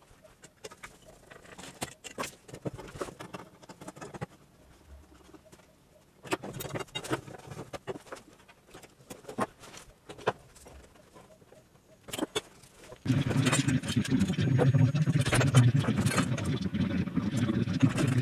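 Scattered clicks and knocks of tools and copper pipe being handled during pipework under the floorboards. About thirteen seconds in, a much louder steady rough noise starts suddenly and becomes the loudest sound.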